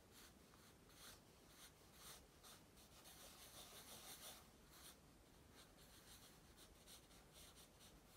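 Pencil sketching on paper: faint scratching strokes, separate at first, then a couple of seconds of continuous scribbling in the middle, then quick short strokes.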